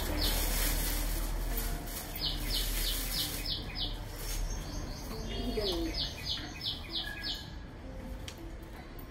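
A small bird calling in short runs of quick, high chirps, about five a second, twice, over a low steady rumble.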